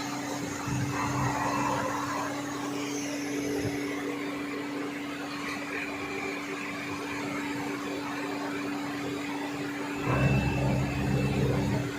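CNC lathe running with a steady mechanical hum and one constant tone through it. About ten seconds in, a louder, lower rumble joins for nearly two seconds.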